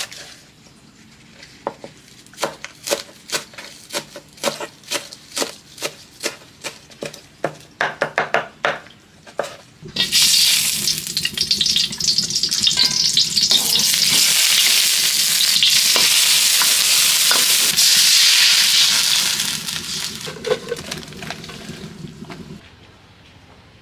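A knife chopping spring onions on a wooden cutting board, about two strokes a second, quickening just before the chopping stops. Then loud sizzling of garlic frying in hot oil in a wok starts suddenly and dies away near the end.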